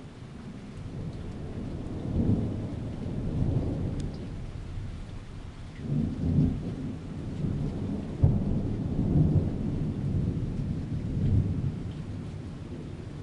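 Thunder from a lightning strike rolling on in several surges: it builds over the first couple of seconds, gives a sharper crack about eight seconds in, and dies away near the end. Steady rain falls underneath.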